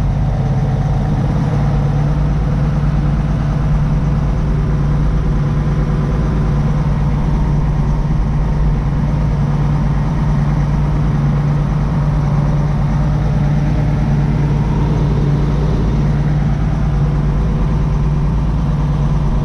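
Case 1570 Agri-King tractor's six-cylinder diesel engine running at a steady speed as the tractor drives along, heard from inside the cab, with a strong low hum that does not change.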